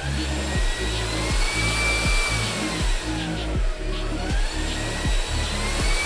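JIGOO C300 cordless vacuum cleaner running, with its airflow and motor noise heard under background music with a steady beat.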